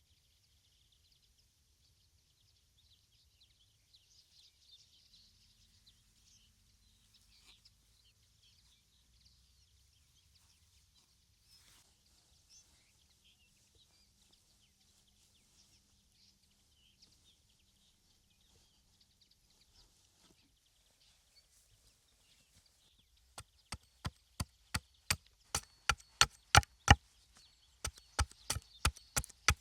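Faint high-pitched outdoor background hiss, then, from near the end, a fast run of loud, sharp knocks, about three a second with a short break, typical of wood being struck during a bushcraft build.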